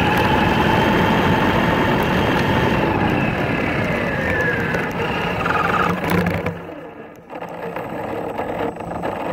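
High-speed RC truck's motor whining as it drives through snow. The whine holds a steady pitch, then falls away about four seconds in; near seven seconds the sound drops briefly almost out before picking up again, quieter.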